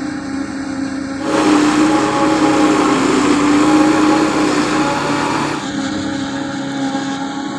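Silage harvester running steadily in a maize field with a constant engine hum. For about four seconds in the middle it gets louder, adding a rushing noise on top.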